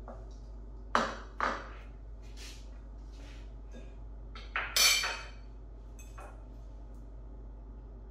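Wooden spoon and bowls knocking and clinking as ingredients are scraped from a small ceramic bowl into a glass salad bowl: two sharp knocks about a second in, a few light taps, then a louder clatter around five seconds.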